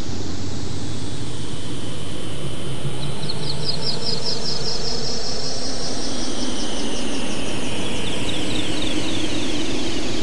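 Synthesized rushing noise, steady and loud, with bands of pitch that slowly sweep up and down. About three seconds in, an ortolan bunting sings a quick run of repeated high notes, then a lower run of repeated notes near the end.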